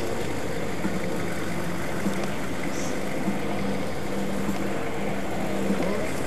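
A car engine idling steadily, an even low hum.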